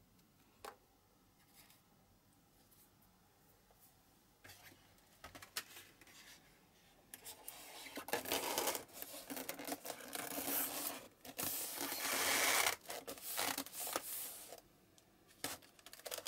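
Cardboard box lid being pushed down over a polystyrene foam base, a long run of scraping and rubbing with many small clicks about halfway through, and a few light taps before and after.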